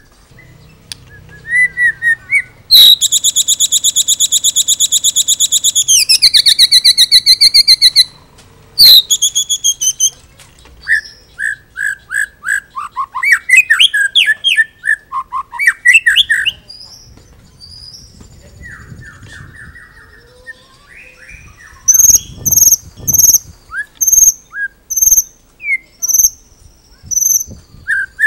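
White-rumped shama (murai batu) singing a varied song: a fast, even trill lasting several seconds that steps down in pitch before it stops, then assorted whistled and scratchy phrases, and a run of short, high, evenly repeated notes near the end.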